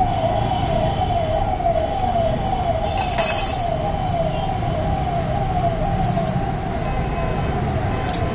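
A siren-like warble: a high tone that falls in pitch and jumps back up, repeating about three times a second at an even loudness, over a steady low rumble.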